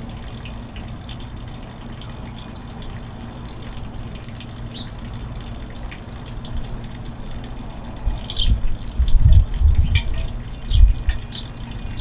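Outdoor ambience: small birds, likely the feeding finches, give scattered short high chirps over a steady low rumble. From about eight seconds in, heavy gusts buffet the microphone.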